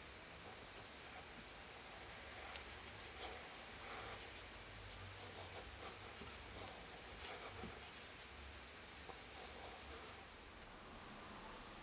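Cloth rubbing back and forth over a wooden cleaver handle: a faint, scratchy rubbing with a small click about two and a half seconds in, easing off near the end.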